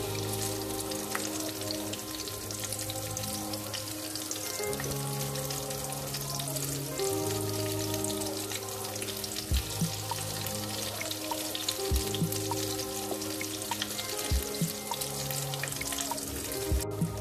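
Potato-stuffed bread rolls deep-frying in hot oil: a steady, dense crackling sizzle. Background music with held notes plays underneath.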